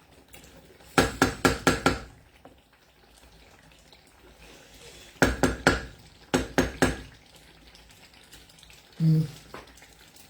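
A metal cooking spoon knocked against the rim of a cooking pot in three quick bursts of about four or five taps each. A brief low hum follows near the end.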